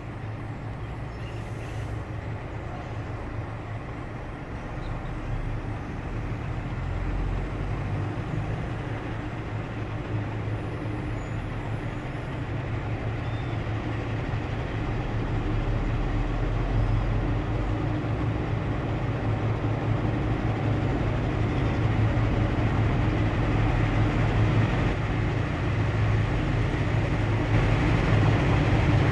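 GE U23C and EMD SD38M diesel-electric locomotives working hard to haul a freight train up a grade. Their steady, deep engine drone grows gradually louder as they approach.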